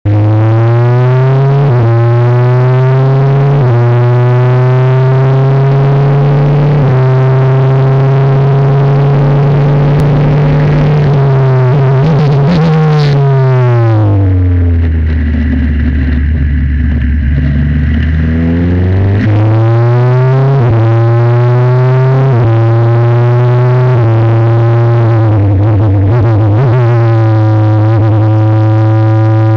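Formula 4 single-seater's engine heard onboard at full throttle on a circuit, climbing in pitch and dropping sharply with each quick gearshift every couple of seconds. About halfway through the engine note sinks low and stays there for several seconds as the car slows for a corner. It then climbs quickly again as the car accelerates out and resumes shifting.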